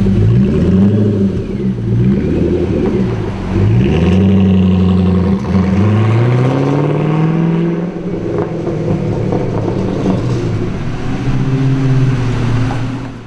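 Twin-turbo Ford GT's V8 exhaust, revved up and down several times, then rising steadily as the car pulls away. It settles to a steadier, slightly quieter note as it drives off.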